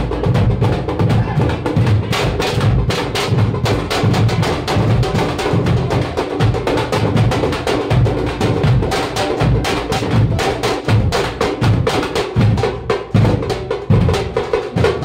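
Tamil parai frame drums and a barrel drum beaten with sticks, playing a fast, steady kuthu dance rhythm of crisp stick strokes over deep thumps.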